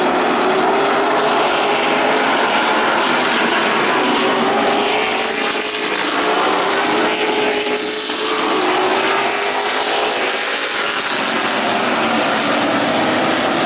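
Stock car engines running hard around an oval track: a loud, continuous drone whose pitch wavers up and down as the cars lap.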